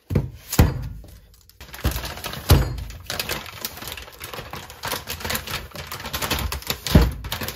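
Cardboard cases of milk cartons wrapped in plastic film handled and set down on a kitchen counter: three heavy thumps, about half a second in, about two and a half seconds in and near the end, with the plastic wrap crinkling and rustling between them.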